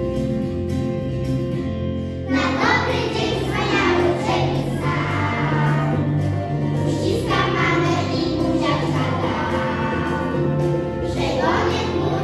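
Children's choir singing a song in unison over a recorded instrumental backing track; the accompaniment plays alone at first and the voices come in about two seconds in.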